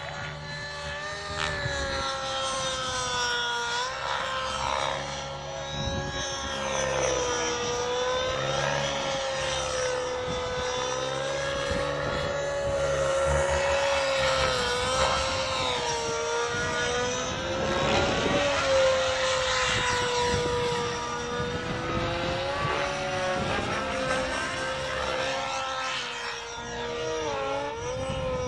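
Nitro-powered radio-controlled helicopter (SAB Goblin Black Nitro) in flight: its glow engine and rotors run at a steady high note that wavers slightly in pitch.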